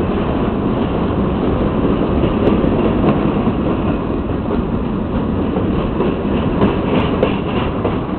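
Grain train's hopper cars rolling past: a steady rumble and rattle of wheels on rail, with a few sharp clicks here and there.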